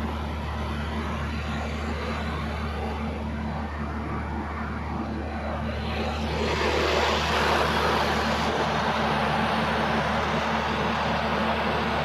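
Load bank running under automatic load: a steady low electrical and machine hum with the rushing air of its cooling fans, which grows louder about six and a half seconds in.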